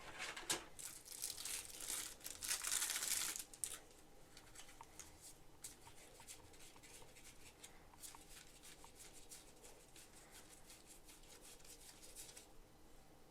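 Board game cards and packaging handled close to the microphone: rustling and crinkling for the first few seconds, loudest about three seconds in, then faint light clicks and taps as the pieces are set down.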